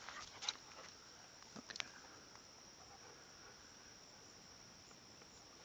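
Crickets chirring steadily, a faint high continuous trill, with a couple of light clicks in the first two seconds.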